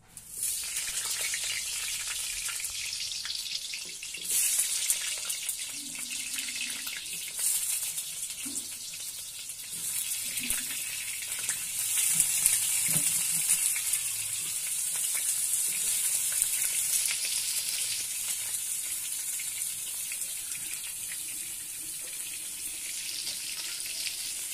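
Raw potato chunks frying in hot oil in an iron kadai: a steady sizzle that starts abruptly as the first pieces go in and swells again a few times as more are added.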